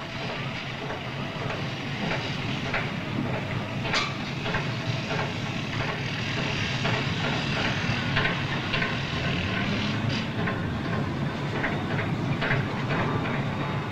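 Steady mechanical rumble and hiss of industrial machinery, with scattered metallic clanks and knocks.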